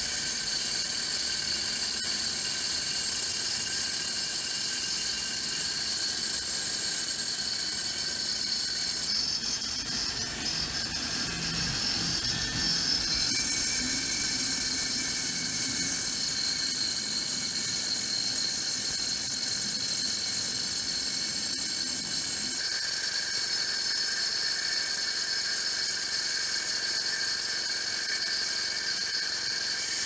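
Electric angle grinder with a cutting disc running with a steady high whine as it saws grooves into a brick. A deeper grinding joins the whine through the middle stretch as the disc is pressed into the brick.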